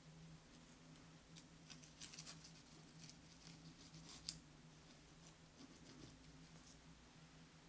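Faint scratchy crackles of a knife cutting the edge off a baked sponge cake sheet on parchment paper, with one sharper tick about four seconds in. A low steady hum runs underneath.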